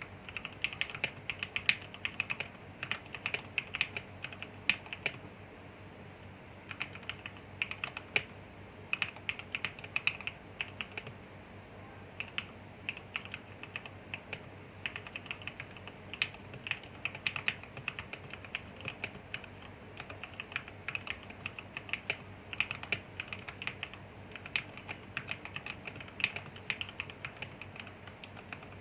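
Typing on a Motospeed K87S mechanical keyboard with lubed Gateron Yellow linear switches, clipped and lubed stabilizers and a band-aid mod: quick runs of keystrokes broken by short pauses.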